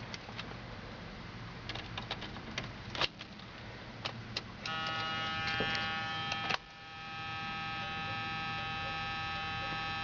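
Light clicks and a key-like rattle from the cab controls, then a steady electric buzz that starts suddenly about four and a half seconds in. The buzz cuts off with a click about two seconds later, swells back up over about a second and holds to the end.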